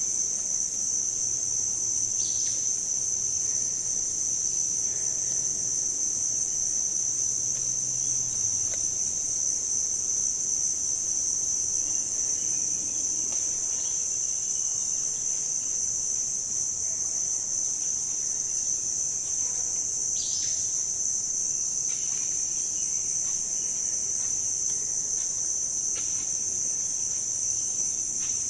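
Steady, high-pitched, shrill insect chorus, like crickets or cicadas, running unbroken. Two brief chirps break in, one about two seconds in and one about two-thirds of the way through.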